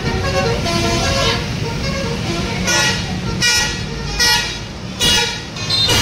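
Multi-tone "telolet" musical air horn of a passing tour bus playing a run of changing notes, then five short loud bursts about a second apart near the end, over the low rumble of the bus engine.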